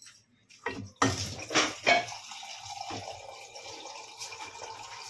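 Water from an RO water purifier's tap running steadily into a hand-held cup. It follows a few knocks and clinks in the first two seconds as the cup is brought to the tap.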